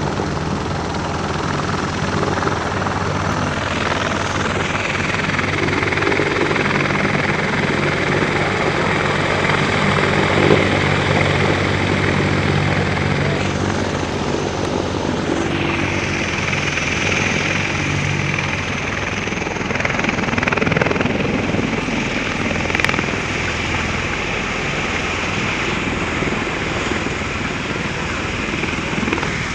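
CH-53E Super Stallion heavy-lift helicopter hovering low with an underslung Humvee: steady, loud rotor noise and the whine of its three turboshaft engines, the high whine coming in a few seconds in.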